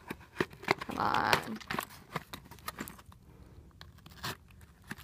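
Small cardboard mailing box being cut open with a folding utility knife: the blade scraping along tape and flaps, with scattered clicks and a louder scrape about a second in.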